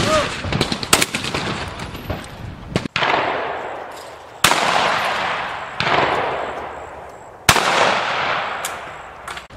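Shotgun shots at a clay-target range, about six of them spaced a second or two apart. Each ends in a long tail that fades over a second or more.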